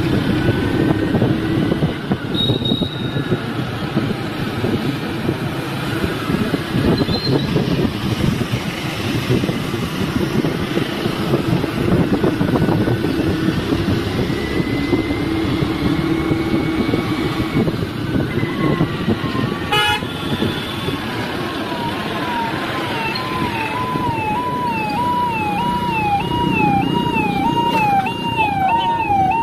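Road noise from riding on a scooter through traffic: a steady engine and wind rush with brief horn toots. About two-thirds of the way in, a warbling siren-like horn starts and rises and falls about twice a second.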